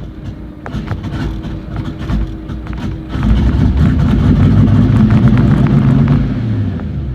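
Turbocharged, cammed Ford 5.0 (302) V8 running with a choppy, lumpy idle. About three seconds in it is revved up and held, then eases back near the end. The owner asks whether the turbo is blown.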